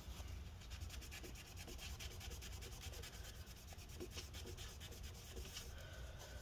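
Paper rubbed quickly back and forth over a laptop's cooling parts, scrubbing off old thermal paste: faint, steady, scratchy rubbing.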